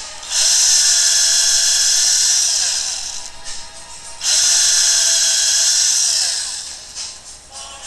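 Handheld electric drill running in two bursts of about three and two seconds, boring small holes in a wooden strip. Each burst ends with the motor winding down in a falling whine.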